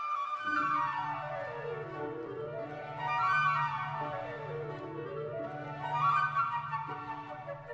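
Instrumental orchestral music: quick runs of notes sweep down and back up several times over a held low note.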